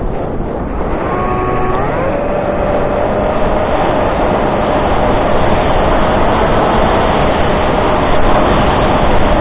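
Electric motor and propeller of a Reptile S800 flying wing, heard from its onboard camera: the whine rises in pitch about a second in as the throttle opens, then holds steady, under a constant rush of wind over the airframe.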